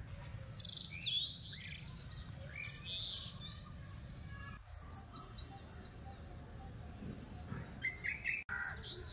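Small birds chirping and calling, including a quick run of about seven descending notes about halfway through, over low background noise.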